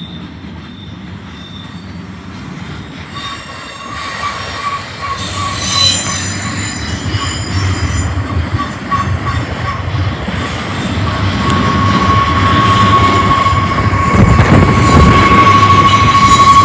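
Intermodal freight train cars rolling past close by, with a low rumble and a high wheel squeal on the curve. The squeal comes in about three seconds in, pulsing at first, then holding steady as it grows louder near the end.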